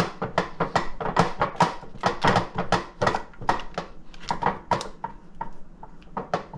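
Butter being rubbed and scraped around a frying pan with a utensil: quick repeated scraping strokes, about three or four a second, for several seconds.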